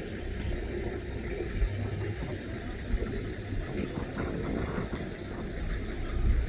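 Low rumble of an idling vehicle engine, with a couple of soft knocks.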